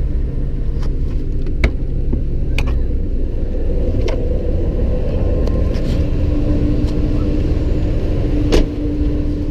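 Steady low rumble of a car ferry's engines under way, with a low hum that fades a few seconds in and another steady tone later. Several sharp clicks and knocks from the camera being handled, the loudest near the end.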